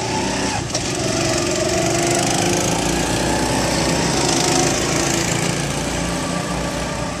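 Small petrol go-kart engines running steadily, their pitch wavering up and down as the karts drive.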